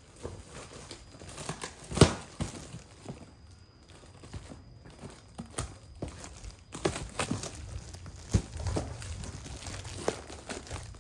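A cardboard box wrapped in plastic and tape being torn and pulled open by hand: irregular rustling, crinkling and tearing, with a sharp crack about two seconds in and several smaller snaps later on.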